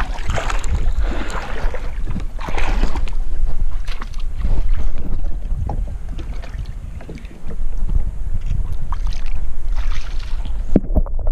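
Wind buffeting the microphone as a heavy low rumble, over water sloshing and splashing close by. Near the end the sound turns suddenly muffled as the microphone goes under water.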